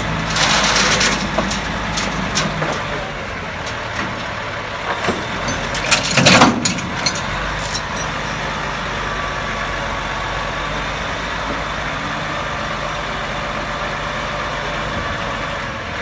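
Heavy vehicle's diesel engine idling steadily, with a burst of hiss about half a second in and a loud cluster of knocks and hiss about six seconds in.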